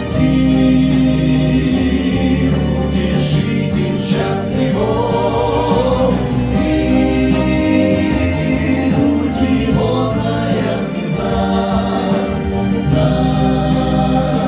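A choir singing a hymn, with long held chords and no clear words.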